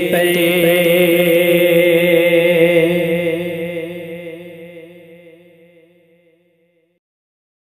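A solo voice holds the long final note of a sung Urdu manqabat. The note wavers with vibrato and fades out from about three seconds in until it is gone.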